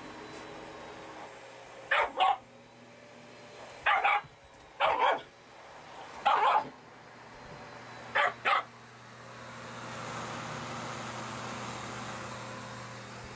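A dog barking: about ten short, sharp barks, mostly in quick pairs a second or two apart, over a steady low hum.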